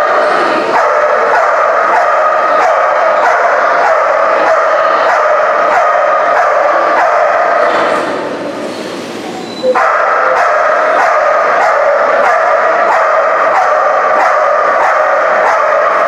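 A dog barking over and over in a fast, regular rhythm, breaking off for under two seconds about halfway through and then starting again abruptly.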